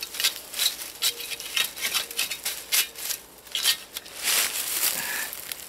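Chain-link fencing being handled and fastened to a steel T-post, giving light, irregular metallic clicks and rattles.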